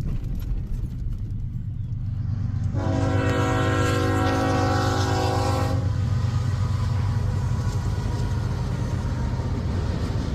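A freight locomotive's air horn sounds one long blast of about three seconds, a few seconds in, over the steady low rumble of the passing train.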